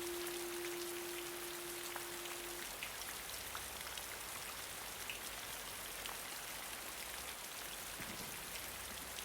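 Steady rain with scattered single drops ticking through it. A held note from the preceding guitar passage lingers and stops about two and a half seconds in.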